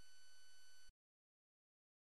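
Faint, steady high-pitched whine that cuts off suddenly about a second in, leaving total silence.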